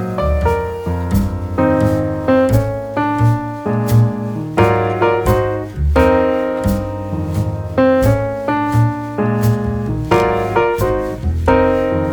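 Background piano music: a solo piano playing chords and melody notes at an easy, steady pace.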